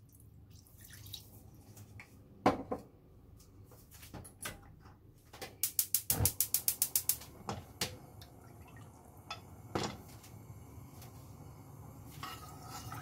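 Kitchen handling sounds: a few separate knocks of utensils and cookware, with a quick, even run of about a dozen clicks in the middle.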